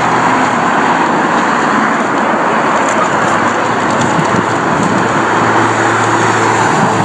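Steady rush of road traffic, cars passing with continuous tyre and engine noise.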